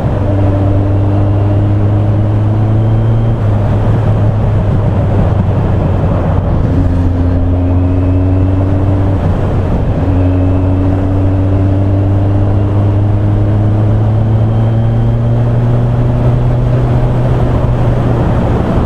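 Yamaha XJR1200's inline-four engine running steadily under way at road speed, its pitch creeping slowly up in places, with wind rushing over the microphone.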